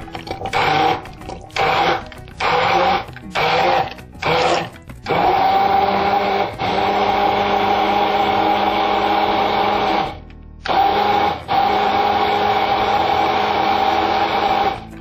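Hand-held electric immersion blender puréeing a tomato and mint sauce in a tall cup: switched on and off in short bursts for the first five seconds or so, then run continuously, with a brief stop about ten seconds in.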